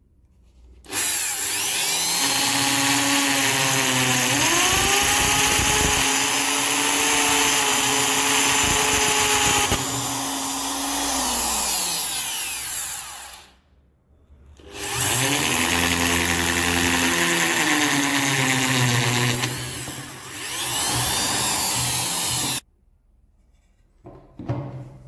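Handheld electric drill boring into a wooden slingshot stock in two long runs with a short pause between them. The motor's whine rises sharply in pitch a few seconds into the first run. It stops well before the end, followed by a light knock.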